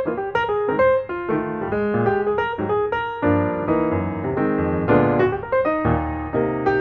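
Background music: a piano playing a quick run of notes.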